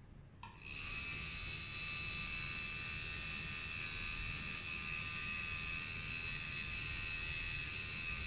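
Tattoo machine running on skin with a steady high-pitched whine of several fixed tones, starting about half a second in.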